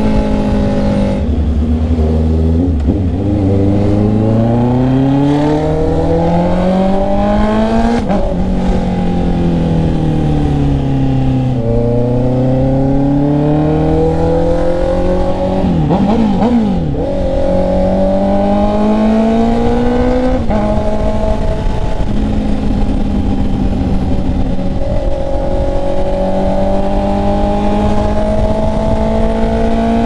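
Honda CB650R's inline-four engine under way on the road. Its pitch climbs as the bike pulls, falls back, climbs again, wavers briefly about halfway through, then settles into a steady cruise with a slow rise, over a rush of wind noise.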